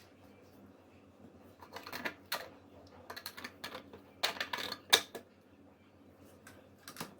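Irregular clicks and light taps of small hard objects being handled, coming in clusters, with one sharp click louder than the rest a little past the middle.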